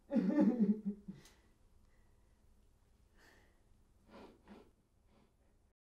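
A woman sobbing: a strong, shaky sob in the first second, then faint breaths and a shorter sob about four seconds in, before the sound cuts to silence near the end.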